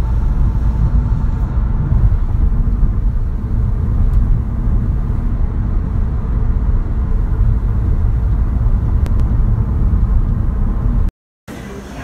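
Road noise inside a moving car's cabin on a wet highway: a steady low rumble of tyres and engine. It cuts off abruptly near the end.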